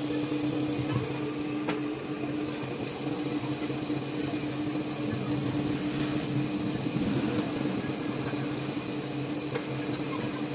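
Metal lathe running with a large workpiece turning in the chuck: a steady hum with a held low tone from the drive, and a couple of faint high ticks in the second half.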